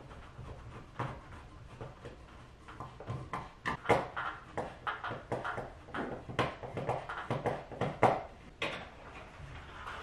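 Screwdriver tightening the mounting screws of a plastic smoke-detector base: a string of irregular clicks and scrapes, busiest from about three seconds in.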